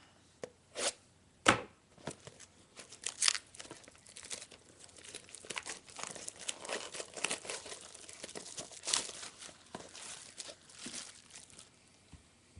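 Plastic shrink wrap being torn and crinkled off a sealed trading card box: a sharp crack about a second and a half in, then a long run of crackling and crinkling.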